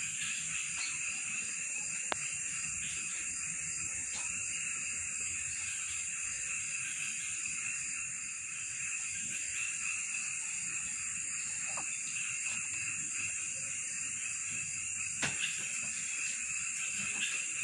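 Night chorus of insects and frogs: a continuous, steady high-pitched trilling, with a couple of faint clicks.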